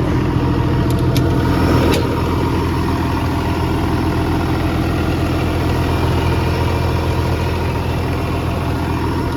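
John Deere 200 LC excavator's diesel engine running steadily, with a few light clicks about one and two seconds in.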